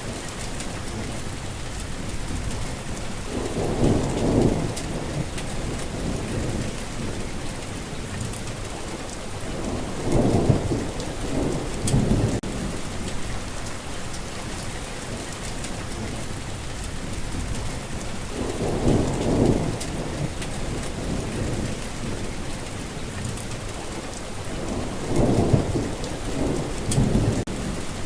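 Heavy rain falling steadily, with thunder rumbling low four times, a few seconds in, around ten to twelve seconds, near nineteen seconds and again near the end.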